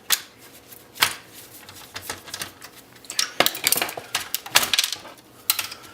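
Irregular metallic clicks and clanks of hand tools on the metal parts of an Oki 9-pin printer being taken apart, coming thicker in the second half.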